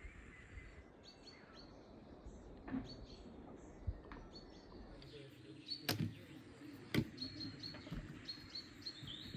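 Small birds chirping in short, scattered calls. Two sharp knocks about a second apart come past the middle and are the loudest sounds.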